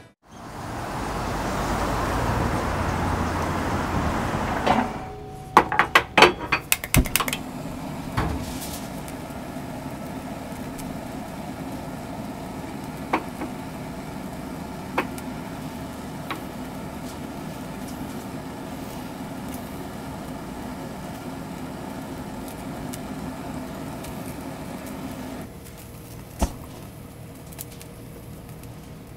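Street-food stall cooking sounds: a steady hiss for a few seconds, then a quick run of sharp clacks and knocks, then a steady low hum with a few scattered clicks that grows quieter near the end.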